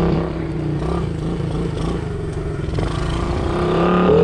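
Small motorbike engine running through an exhaust packed with steel wool as a makeshift muffler, holding a steady pitch and then revving up near the end.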